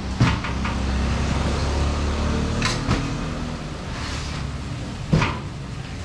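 Low hum of a vehicle engine running, fading out about halfway through. Over it come a few sharp knocks and bangs of boxes being handled and unloaded on a truck bed.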